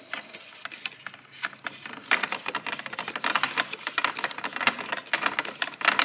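Hand screwdriver driving a screw back into a car's exterior door handle assembly, making a run of rapid, irregular clicks that gets louder about two seconds in.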